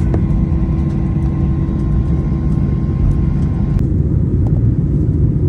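Steady, loud low rumble of a moving vehicle, with faint steady tones above it; the higher tones and hiss drop away abruptly a little under four seconds in.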